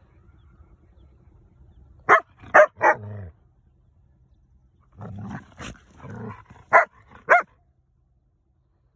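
Dogs in a scuffle: three quick sharp barks about two seconds in, then growling with two more sharp barks near the middle.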